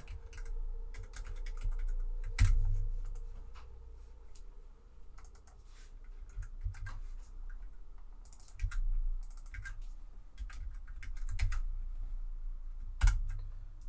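Typing on a computer keyboard: irregular key clicks, with a louder keystroke about two and a half seconds in and another near the end.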